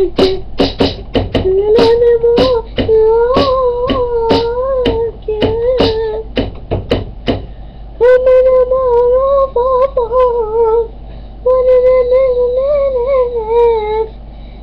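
A person beatboxing: quick percussive clicks and pops over a wordless voiced tune for about the first seven seconds. After that the voice carries the tune alone in long, wavering held notes.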